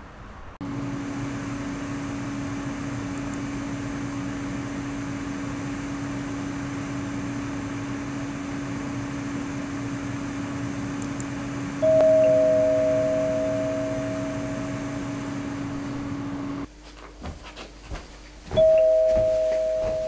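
A doorbell rings twice with a two-note ding-dong, higher note then lower, each ring fading out slowly; the first comes a little past the middle and the second near the end. Under the first ring a steady low hum runs and then cuts off, and a few soft clicks fall between the two rings.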